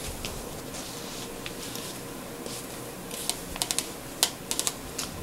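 Light, sharp clicks and taps: a few scattered ones, then a quick irregular run of them in the second half.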